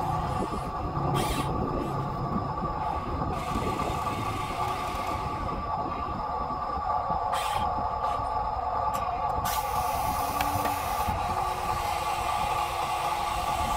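RC hydraulic excavator's electric motors and pump running with a steady whine as it digs and swings. Several rushes of gritty noise come as soil is scooped and dropped into the metal bed of the RC dump truck.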